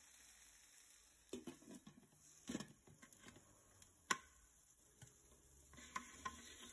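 Soft knocks and clinks from a stainless-steel AMC pan and its lid being handled and set in place over grilled fish, with one sharp click about four seconds in.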